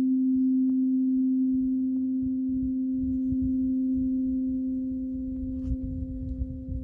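Struck steel tuning fork ringing: one steady low pure tone with a fainter overtone an octave above, slowly dying away. A low rumble builds underneath from about halfway through.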